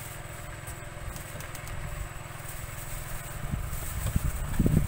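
A small boat's motor running steadily, a low pulsing drone. Near the end there are a few louder dull bumps from clothing brushing the microphone.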